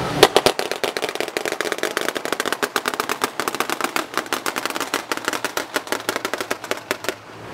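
Rapid, irregular bursts of machine-gun fire from the mounted guns of navy assault boats, many shots a second, with the first shot the loudest. The firing stops shortly before the end.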